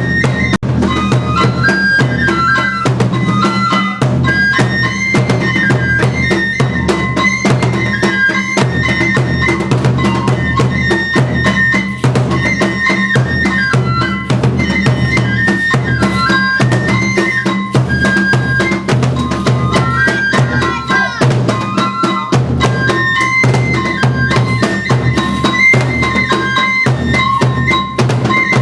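Shinto kagura music: a bamboo flute playing a stepping melody over steady taiko drum beats.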